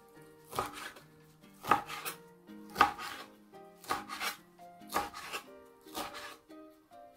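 Kitchen knife chopping lettuce leaves on a cutting board, with sharp cuts about once a second.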